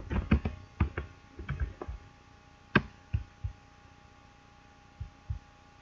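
Computer mouse and keyboard clicks: a quick run of clicks in the first two seconds, a few more around three seconds, then two last ones about five seconds in.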